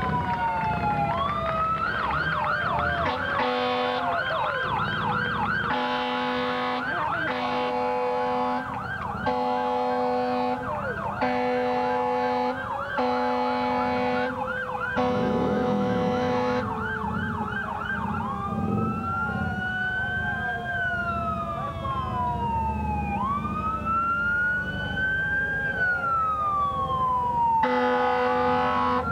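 Fire engine sirens sounding as the trucks pass, slow rising-and-falling wails overlapping a fast yelp for much of the first half. Short horn blasts cut in again and again, about eight in the first half and one more near the end.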